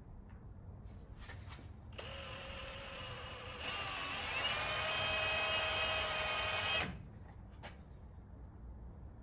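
Power drill running for about five seconds, drilling through the car's door pillar. Its whine gets louder and climbs in pitch partway through, then stops abruptly. A few light clicks come before and after.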